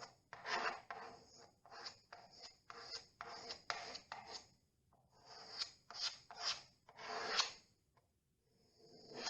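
Filler knife scraping through and spreading two-part wood filler in a series of short strokes, with brief pauses about five and eight seconds in.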